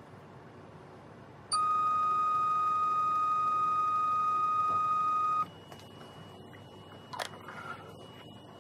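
Electronic beep from a benchtop lab instrument: one long steady tone lasting about four seconds, starting a little over a second in. After it a faint high steady tone carries on, and a sharp click with a brief rattle comes about seven seconds in.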